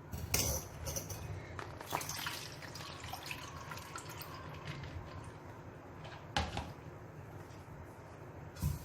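Water draining and dripping from soaked split moong dal tipped into a mesh strainer, with a few sharp knocks of the strainer against the vessel.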